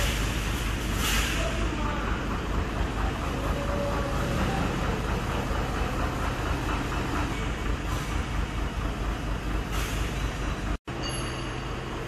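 Steady engine and road rumble of a moving vehicle, with a few short hissing bursts. The sound drops out for an instant near the end and resumes with a slightly different steady hum.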